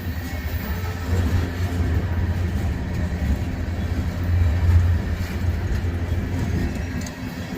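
A train rumbling past, a steady low rumble with some rushing noise above it.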